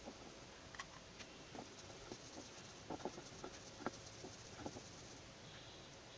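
Stone roller being worked back and forth over mustard seeds on a sheel grinding stone, crushing them into paste: faint, irregular crunching and scraping clicks, a few each second.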